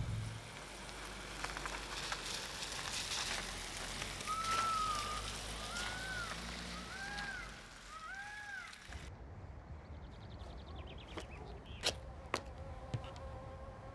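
A car running and driving by outside, a steady low rumble with road hiss, while four short rising-then-falling calls sound one after another. About nine seconds in it cuts off sharply to a quieter room tone with a few sharp clicks.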